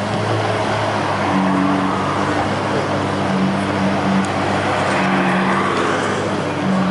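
Lamborghini Aventador's V12 engine idling, a steady exhaust note that holds one pitch without revving.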